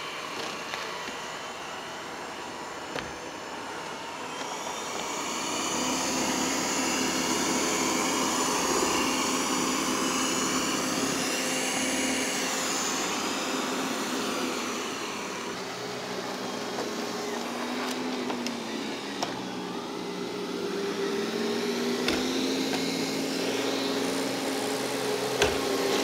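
Ecovacs Deebot N8+ robot vacuum running, with a motor whine that shifts in pitch. Its sound grows louder about five seconds in as it raises its suction power on the rug.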